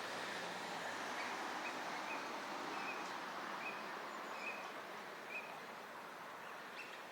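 Steady outdoor background noise, with faint short bird calls repeated about once a second through the first two thirds.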